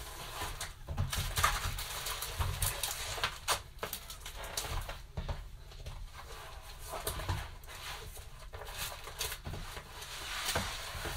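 Plastic-sleeved chalk transfer sheets being pulled from a large package and shuffled by hand, the plastic crinkling and rustling in irregular crackles.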